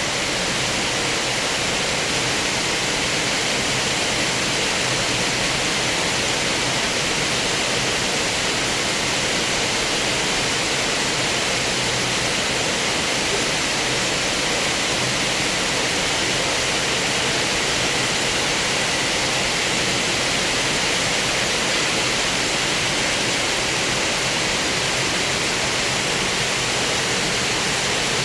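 Heavy rain pouring down: a dense, steady hiss.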